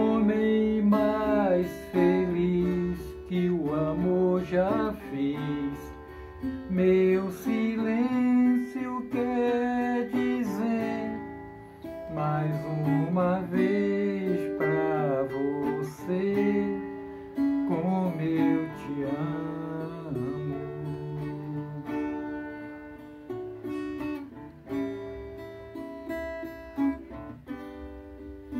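Acoustic guitar strummed and picked in a slow song accompaniment, with a man's singing voice over it through roughly the first half. The guitar carries on alone and softer toward the end.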